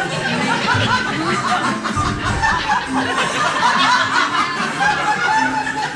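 An audience laughing and chattering, with music playing underneath.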